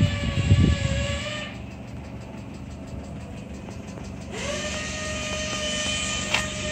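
A steady machine whine stops about a second and a half in, then spins back up to the same pitch a little after four seconds. A low rumbling noise comes at the start, and a sharp click comes near the end.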